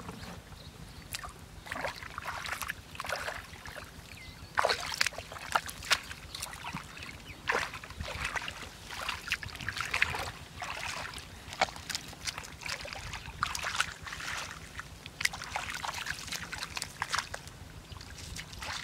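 Bare feet wading through shallow muddy water, with irregular splashing and sloshing.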